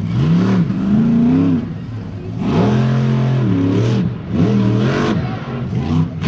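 Grave Digger monster truck's supercharged V8 revving hard in repeated bursts, the pitch climbing and falling back several times as the truck spins donuts in dirt.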